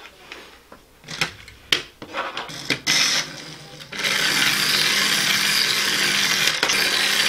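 A few light clicks and taps, then about four seconds in the electric motor of a small phone-controlled toy race car starts up and whirs steadily as the car drives.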